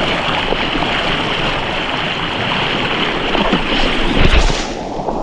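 Steady rushing water of a mountain stream or waterfall, with a low thump about four seconds in; the rushing thins out near the end.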